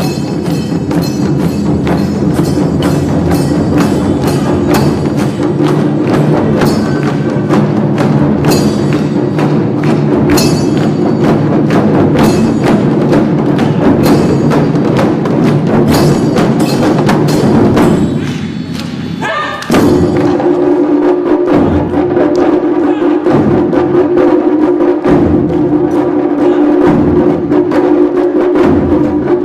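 Japanese taiko drums played as an ensemble, struck in a fast, even rhythm with a steady low tone underneath. The playing thins out briefly about 18 seconds in, then the full rhythm starts again.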